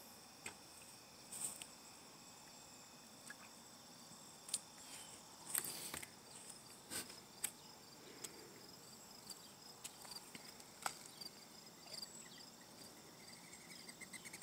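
Insects, crickets by the sound of it, chirping steadily at a summer pond, with a scattering of short sharp clicks and taps at irregular moments.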